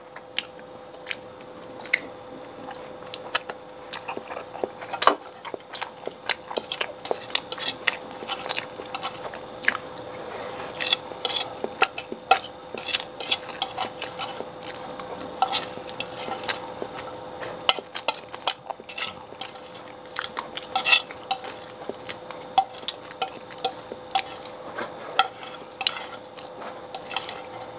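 Cutlery clinking and scraping against dishes during a meal, in many quick, irregular clicks, over a steady hum.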